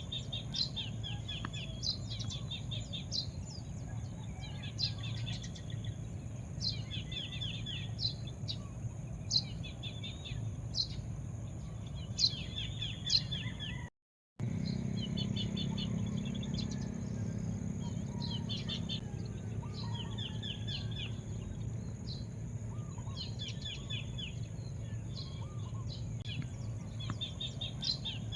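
Wild birds chirping outdoors: many short, high chirps and quick trilled runs of notes, repeated throughout over a steady low background noise. The sound cuts out completely for a moment about halfway through.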